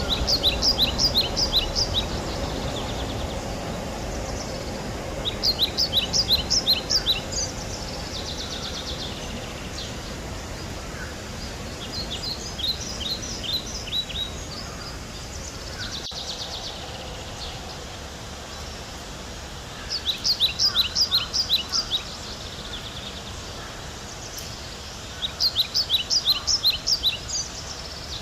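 A small songbird singing a quick run of high, evenly repeated notes, about two seconds long, five times over with pauses of several seconds between, against a steady outdoor background hiss.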